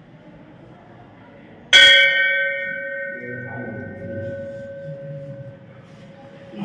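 A metal temple bell struck once about two seconds in, its ringing fading slowly over the next few seconds.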